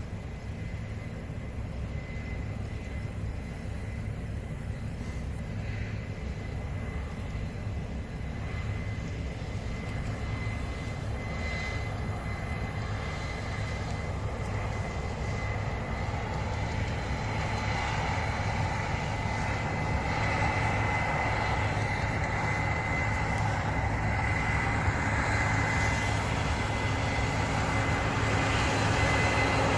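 Case IH combine harvester running steadily while picking up barley, with a low hum and a thin high whine, growing gradually louder.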